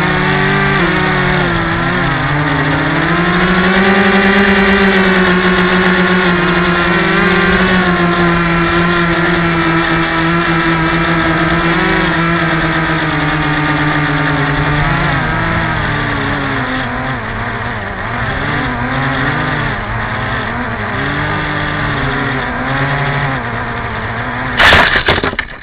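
Small electric motor and propeller of a Yellow Bee RC airplane buzzing loudly, heard from a camera on the plane, its pitch rising and falling with the throttle. Near the end a sharp, loud thud as the plane hits the ground, then the motor noise drops away.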